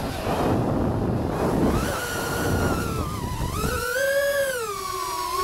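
FPV quadcopter's brushless motors whining, the pitch rising and falling with the throttle. Wind rushes over the microphone for the first three and a half seconds or so, then drops away, leaving the motor whine clear.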